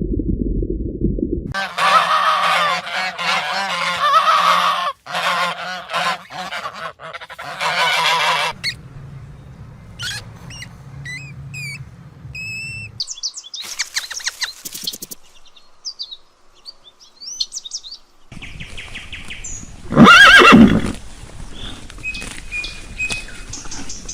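A run of animal sounds from several cut-together clips: a dense chorus of bird calls, then thin high chirps, then one very loud call about twenty seconds in. It opens with a brief low rumble.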